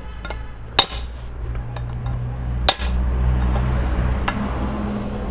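Hammer blows on the steel ball-joint socket of an Eicher 11.12 truck's tie rod end during reassembly: two sharp, ringing metal strikes about two seconds apart, then a lighter tap. A steady low hum runs underneath from about a second in.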